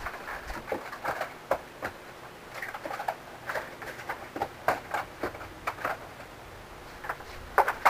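Cardboard shoeboxes being handled and stacked into a tower: irregular light knocks, taps and scrapes of card on card.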